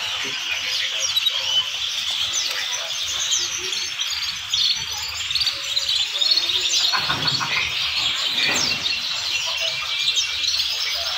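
A large flock of caged domestic canaries chirping and singing all at once: a dense, continuous chatter of short, high calls and trills.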